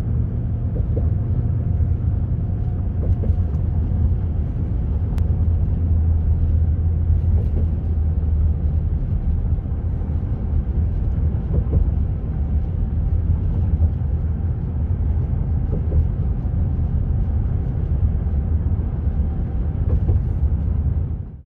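Steady low rumble of road and engine noise inside the cabin of a moving vehicle at road speed, with a few faint ticks.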